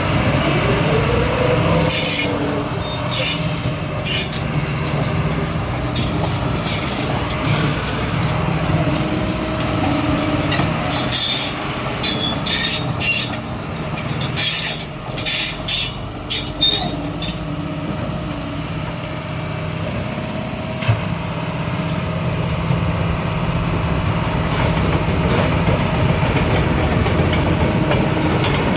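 Doosan DX225 crawler excavator working: its diesel engine runs steadily while sharp metallic clicks and clanks come and go from about two seconds in until a little past halfway.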